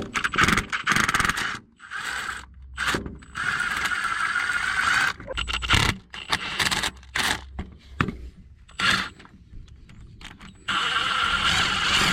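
Hand tools working on the backhoe's starter mounting bolts: ratchet clicks, metal knocks and scraping, with two longer spells of noisy ratcheting.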